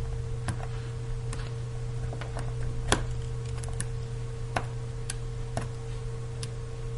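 About ten sharp, irregular clicks and taps of a plastic spudging tool against the opened iPhone 4S's internal parts and connectors, the loudest about three seconds in. A steady low hum runs underneath.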